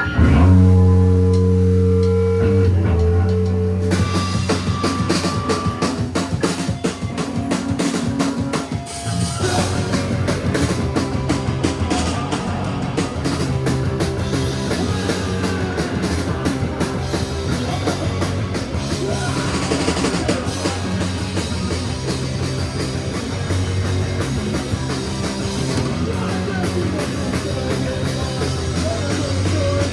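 Live punk rock band playing: a held guitar and bass chord rings out, drums come in about four seconds in, and the full band plays a fast, driving part from about nine seconds on.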